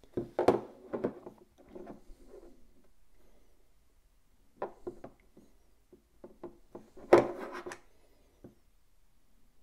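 Two power meter pedals, one black and one silver, handled and turned over in the hands: scattered clicks, knocks and rubs of the pedal bodies against each other and the tabletop, coming in short clusters, with the loudest knock about seven seconds in.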